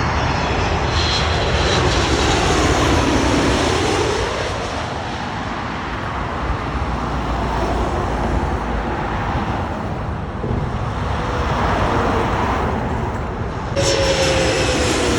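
Jet airliner engines roaring as it passes close on landing, the pitch dropping as it goes by. Near the end the sound changes abruptly to a higher engine whine with a slowly falling tone.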